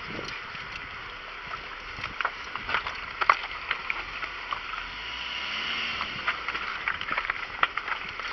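Rocks and gravel on a rocky mountain trail crunching and clicking over a steady rushing noise, with a sharper crack about three seconds in.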